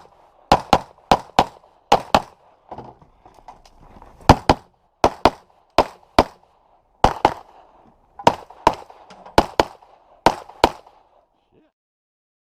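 Pistol shots fired in quick pairs, about ten pairs with a pause of about two seconds between the third and fourth; the shooting stops a little before the end.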